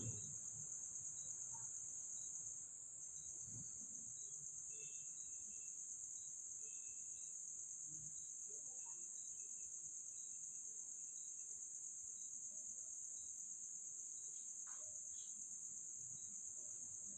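Steady high-pitched insect trill with faint, regular ticks about twice a second and a few soft scattered knocks.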